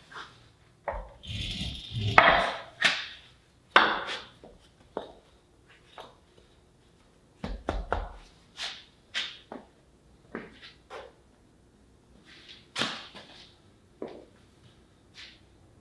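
Heavy steel leaf spring pack from a Mack camelback suspension being shifted and set down on a concrete floor: irregular knocks, thunks and scrapes, with a longer scraping spell about two seconds in.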